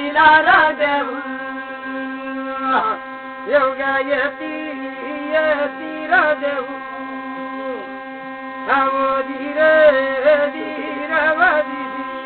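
Thali, a brass plate with an upright stick stroked to make it sound, giving a steady unbroken drone. Over it a voice chants a sung story in short phrases with pauses between them.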